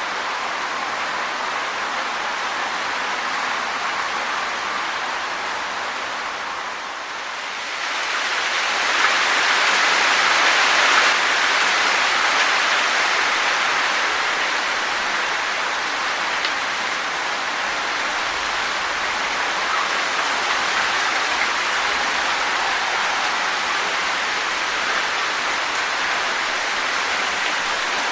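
Wind rustling through tree leaves, a continuous hiss. It dips briefly about seven seconds in, then swells in a stronger gust around ten seconds in before settling back.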